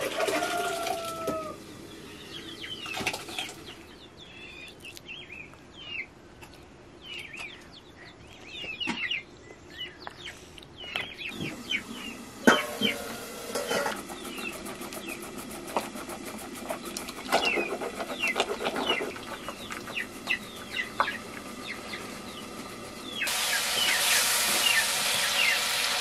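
Chickens clucking and chicks peeping in many short high calls, over the splash of liquid poured between aluminium pots at the start and a wooden stick stirring a pot of liquid. Near the end a steady hiss sets in: meat frying in an iron wok.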